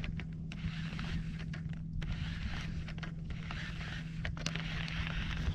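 Scattered small clicks and light scrapes of hands working a baitcasting reel, over a steady low hum.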